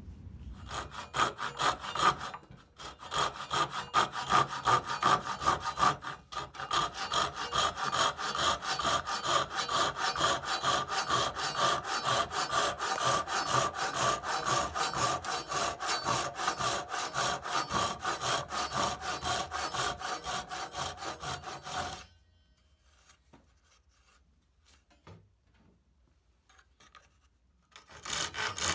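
Hand saw cutting a kerf down into the end of an old hickory hammer handle, in quick back-and-forth rasping strokes. The sawing breaks off briefly twice early on, stops about 22 seconds in, and starts again near the end.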